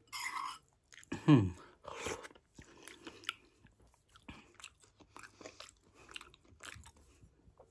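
A person chewing a mouthful of instant noodle soup, with soft wet mouth sounds and small clicks. One short falling sound stands out about a second in.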